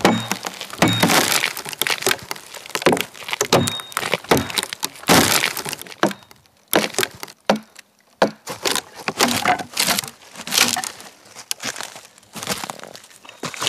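Wood being split by hand: a series of sharp, irregular blows and cracks as the log splits along its grain, with a short lull about halfway through.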